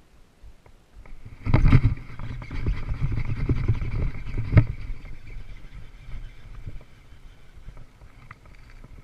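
Hookset and fight of a largemouth bass on a fishing rod: loud rumbling handling noise with two sharp knocks as the rod is swept back, over a steady whir of the fishing reel being cranked as the fish is brought to the surface.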